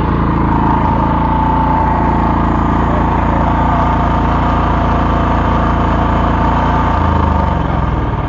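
Small generator engine running steadily on biogas through a modified carburettor, fed at low gas pressure. About seven seconds in, its note drops and turns uneven.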